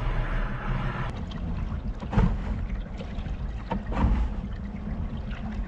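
A kayak moving on river current: water washing against the hull over a steady low rumble, with two brief knocks about two and four seconds in.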